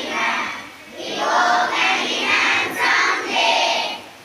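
Group of schoolchildren's voices in unison, singing or chanting in short phrases, with a brief break about a second in.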